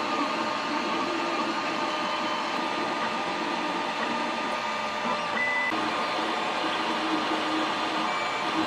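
Creality Ender 3 Pro FDM 3D printer running a print: its stepper motors whir in shifting tones as the print head moves, over a steady fan hiss. A short high tone sounds about five seconds in.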